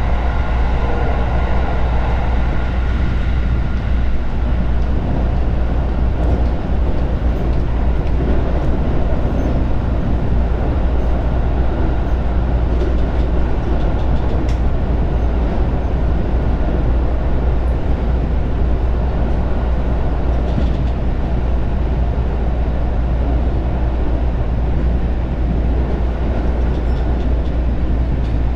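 Steady running noise of a Joban Line local electric train heard from inside the car: a deep, even rumble of wheels on rail. A faint whine fades away over the first few seconds.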